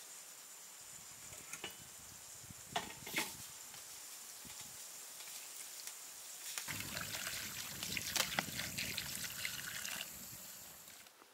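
Water poured from a metal kettle into an enamel basin of quince peels, a steady splashing pour lasting about four seconds that starts a little past halfway and tails off near the end. A few sharp knocks come earlier.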